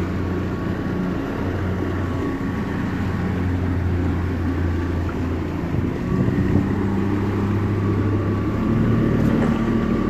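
Small fishing boat's engine running steadily, a low hum that rises a little in pitch about six seconds in.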